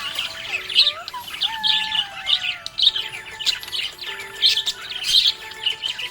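Budgerigars chirping and chattering nonstop in quick overlapping chirps, mixed with longer whistled notes, one of which slides slowly downward.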